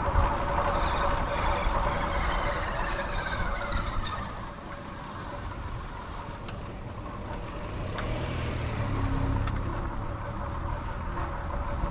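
Street traffic: motor vehicles running close by. A tone falls in pitch over the first few seconds, and a low engine rumble swells near the end.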